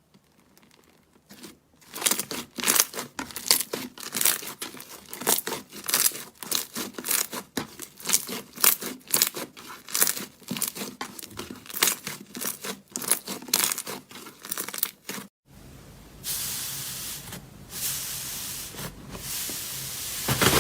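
Slime being worked, giving rapid, irregular sticky pops and crackles. About fifteen seconds in, it changes to a steadier crackling hiss.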